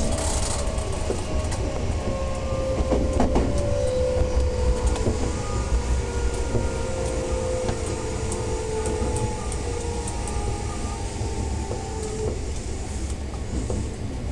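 Odakyu 8000 series electric train running, with the traction motor and SiC-VVVF inverter whine falling slowly in pitch as the train slows, over a low running rumble. Occasional clicks and clacks from the wheels and track.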